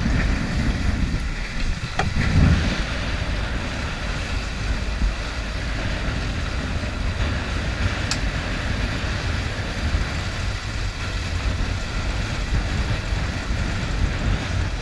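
Strong wind buffeting the microphone over the rush of waves and spray along the hull of a sailboat sailing close-hauled upwind in heavy wind. There is a sharp click about eight seconds in.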